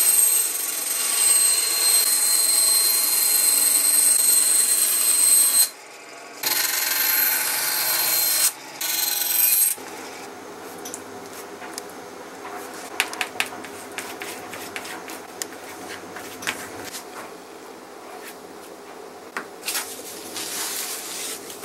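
Bench bandsaw cutting a thin plywood sheet, running loud with a steady high whine in three stretches of about six, two and one seconds. From about ten seconds in, much quieter brushing and rubbing as glue is spread along a plywood strip and wiped off with a rag, with a few light clicks.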